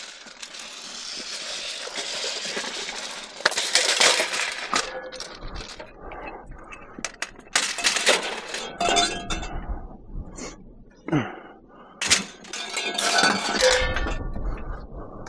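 Pieces of scrap metal being handled and stacked onto a load, clanking and rattling in several separate bursts.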